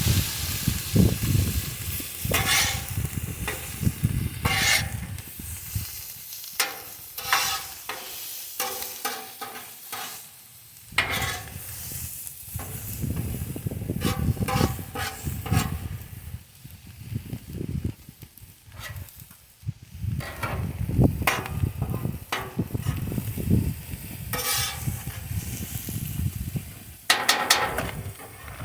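Spatula scraping and stirring on a hot flat-top griddle in irregular strokes, while sliced steak, bell peppers and onions sizzle.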